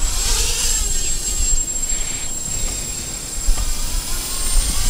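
EMAX NightHawk 280 Pro racing quadcopter's brushless motors and propellers whining in flight, the pitch gliding up and down as the throttle changes, under a low rumble of wind on the microphone.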